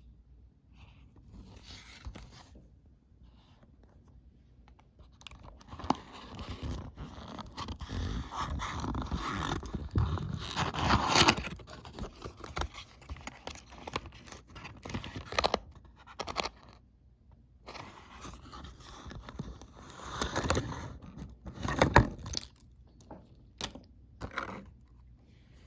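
Toy train packaging being opened and handled by hand: irregular scraping, crunching and tearing with scattered clicks, busiest in the middle and again briefly near the end.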